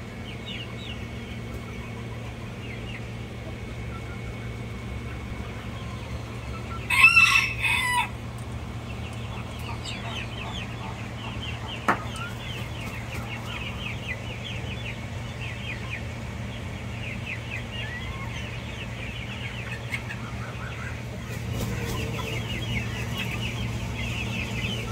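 A rooster crows once, loudly, about seven seconds in, over a constant scatter of short high chirps and a steady low hum.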